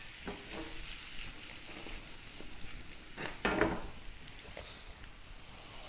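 Shrimp sizzling steadily as they sauté in melted butter in a frying pan, with a short, louder stirring noise about three and a half seconds in.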